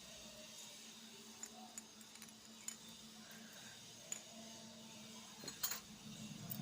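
Small hard pieces of a miniature toy kitchen set clicking and clinking as they are handled, in a scattering of light taps with the loudest near the end, over a faint steady hum.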